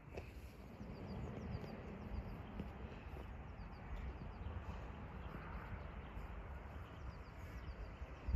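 Small birds chirping faintly and repeatedly over a steady low outdoor rumble.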